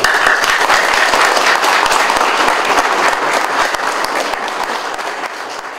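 Audience applauding, a dense clatter of many hands clapping that tails off near the end.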